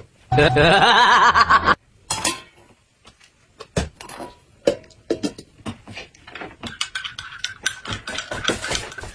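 A brief loud warbling tone that cuts off sharply, then scattered clicks and clinks of tableware: a stainless steel bowl set down over food on a glass-topped table, and a spoon in a glass bowl.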